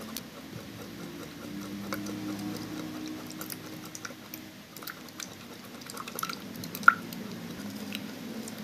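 Silicone spatula stirring milk and egg in a plastic measuring jug: soft wet sloshing with scattered light taps, and one sharper click nearly seven seconds in.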